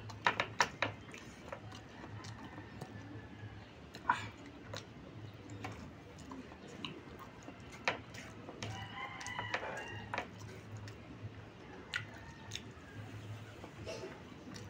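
A rooster crows once about halfway through, one drawn-out call over a second long. Around it are scattered short clicks and smacks from someone eating.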